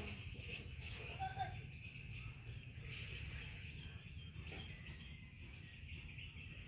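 Faint outdoor background: a steady high insect drone with scattered small bird chirps, over a low steady rumble.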